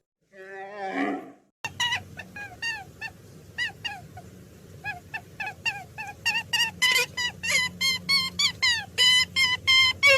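Animal calls: a wavering moan lasting about a second, then, after a brief gap, a long run of short high yelps that each fall in pitch, coming faster and louder toward the end.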